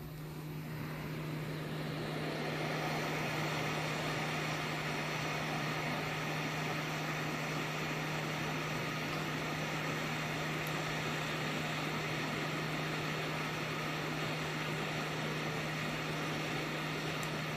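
Hot-air rework station blowing a steady stream of air while a chip is soldered onto a circuit board, the airflow building up over the first couple of seconds, with a steady low hum from its blower.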